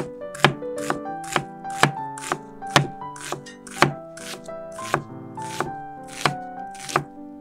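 Chef's knife chopping red onion on a wooden cutting board, a steady rhythm of about two sharp knife strikes a second. Background music with held notes plays underneath.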